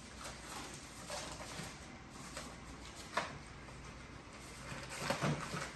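American bully puppies shuffling and pawing about inside a wire dog crate, with a single sharp click about three seconds in.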